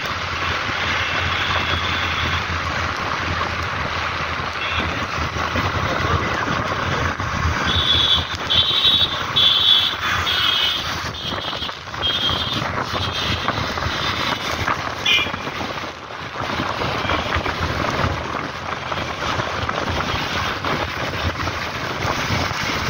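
Riding a two-wheeler on a wet road at about 45 km/h: a steady rush of wind and road noise. About a third of the way through comes a run of about seven short high beeps, roughly one and a half a second.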